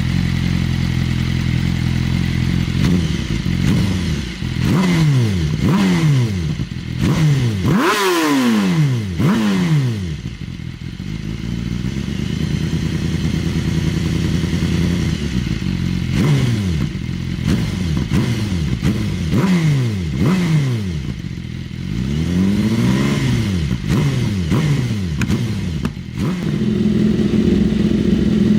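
BMW S1000RR inline-four running on a cold start through a freshly installed Austin Racing GP1R exhaust system, idling with repeated quick throttle blips that rise and fall in pitch. The idle sits higher near the end.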